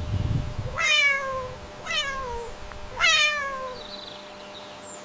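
Domestic cat meowing three times, about a second apart, each meow falling in pitch. A brief low rumble comes at the very start.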